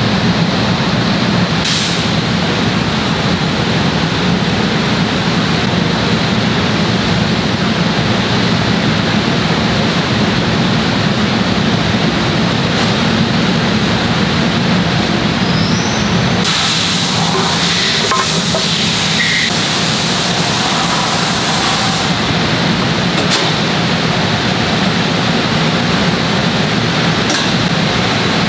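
Steady drone of factory machinery around moulding presses. A high hiss joins it for about five seconds past the middle.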